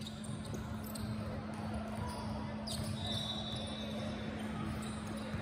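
Basketball bouncing on a gym floor: scattered thumps over a steady low hum, with a thin high tone lasting about a second just past the middle.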